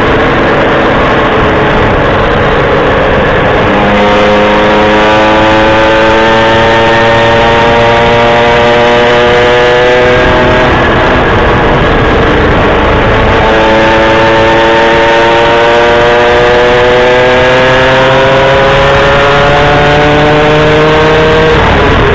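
Vehicle engine heard on board while driving, twice pulling with its pitch slowly rising for several seconds, with a break about halfway through, over a constant loud rushing noise.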